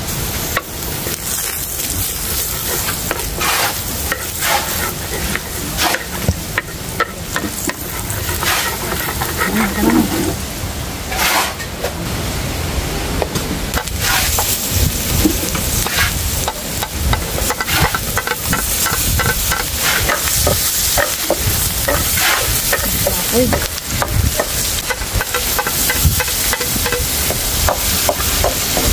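Food sizzling and frying in a hot pan while it is stirred, with frequent clicks and scrapes of the utensil against the pan.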